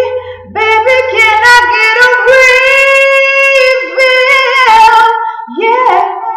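A woman singing solo: a long wordless run of held notes that bend and slide, trailing off near the end.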